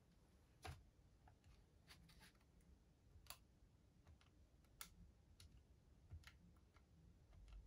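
Scientific calculator set down on the desk with a light knock under a second in, then its plastic keys pressed one at a time in faint, irregular clicks.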